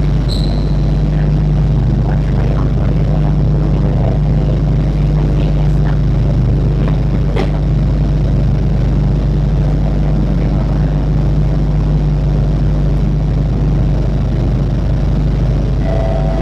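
Steady low hum of a Singapore MRT train standing at a station platform, with a few faint clicks.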